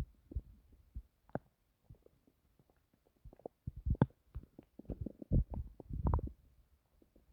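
Human stomach growling: irregular low gurgles and pops, scattered at first, then a busy run of gurgling in the second half.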